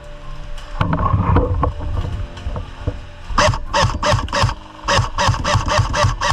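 Airsoft guns firing rapid shots in two volleys, about five shots a second, the second volley starting about three and a half seconds in.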